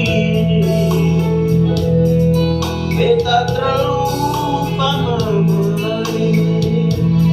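Music: singing over a steady electronic organ or keyboard accompaniment.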